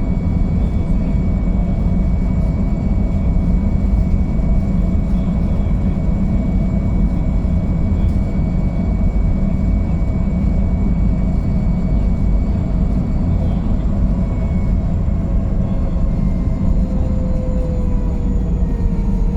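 Boeing 929 Jetfoil's gas turbines and waterjet propulsion running in a steady, heavy drone with a thin high whine over it. The vessel is running at reduced speed after a suspected strike on an unknown object. Near the end one of the tones rises slightly in pitch.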